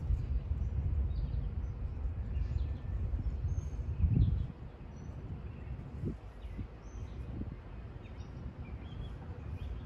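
Outdoor background noise: a low rumble with a louder surge about four seconds in, and faint bird chirps scattered through it.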